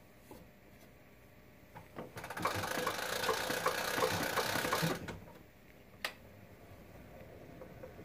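Wind-up cabinet gramophone being cranked: a mechanical whirr with ratchet-like clicks about three a second, lasting about three seconds and stopping abruptly, followed about a second later by a single sharp click.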